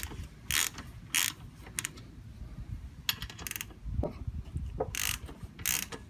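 Hand ratchet wrench turning the trike's rear axle nut loose: short bursts of pawl clicking on each back-swing, in runs about every half second with brief pauses between.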